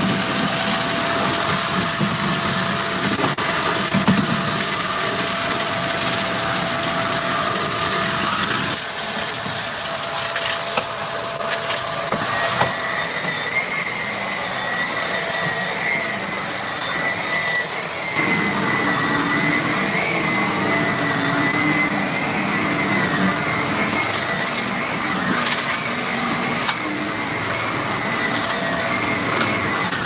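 Shark Rotator upright vacuum cleaner running steadily over carpet, its motor whine shifting to a higher pitch about twelve seconds in. Debris crunches and crackles up the nozzle in scattered small clicks.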